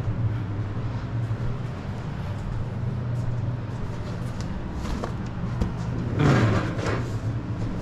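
A cardboard package being handled and opened, with faint clicks and one louder rustling scrape about six seconds in, over a steady low hum.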